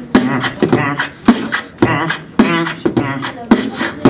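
A man beatboxing into a handheld microphone: sharp kick and snare sounds about twice a second, mixed with hummed bass tones in a steady rhythm.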